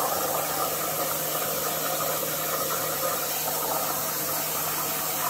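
CNC plasma torch cutting through sheet metal: a steady, even hiss of the plasma arc with a low steady hum beneath it.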